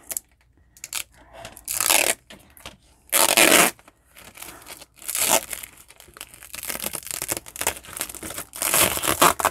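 Protective plastic film being peeled off a clear plastic planner cover: several crackling, tearing bursts, the loudest about three seconds in, then a run of fine crinkling as the film comes away and is gathered up in the hand.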